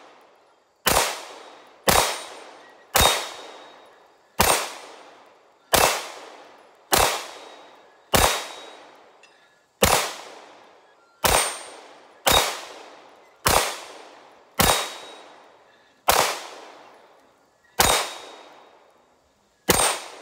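Walther PPQ 9mm pistol fired through a T&J Tactical 9mm suppressor: about fifteen shots in slow, steady succession, roughly one every second and a bit, each trailing off over about a second.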